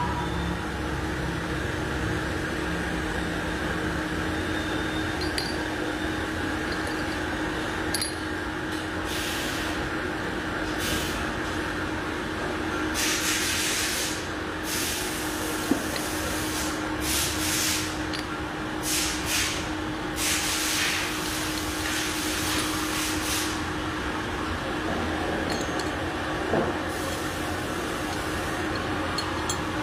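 CNC milling machine running in a machine shop: a steady mechanical hum, with a run of short hissing bursts through the middle.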